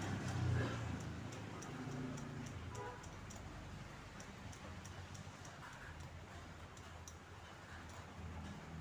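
Thumb-pump oil can clicking with each squeeze of its lever, two to three sharp ticks a second, as oil is squirted onto the crankshaft and its bearings.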